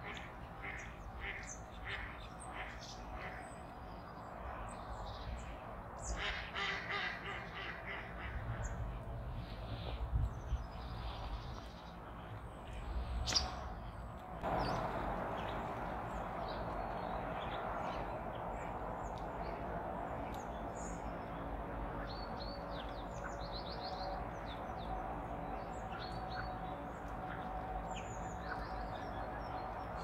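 Small songbirds chirping and calling, many short high calls close together in the first half. About halfway through, the background turns abruptly to a steadier noise with fewer, scattered chirps.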